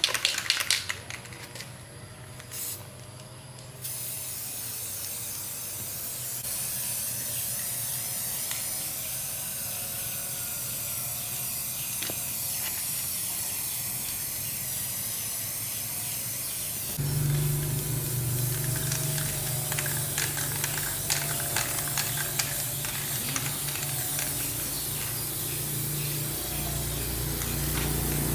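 Aerosol spray-paint can hissing in long, steady sprays. A few sharp knocks come first, and from a little past halfway a low steady hum and scattered clicks join the hiss.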